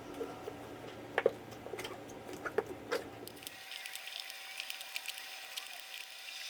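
Machine kneading bread dough: a low motor hum with the dough slapping and squishing against the bowl, with a few sharp clicks. The hum cuts off about three and a half seconds in, leaving a faint steady whine and hiss.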